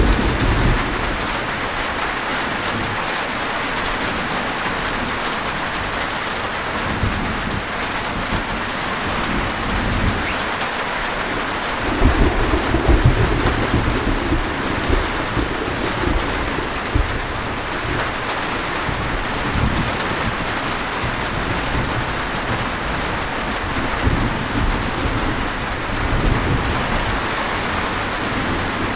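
Steady heavy rain falling, with rolls of thunder rumbling underneath; the loudest thunder comes about twelve seconds in and rumbles for a few seconds.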